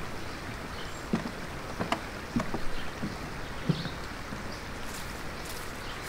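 Footsteps knocking on wooden stairs, a handful of irregular hollow steps, over the steady rush of a small stream.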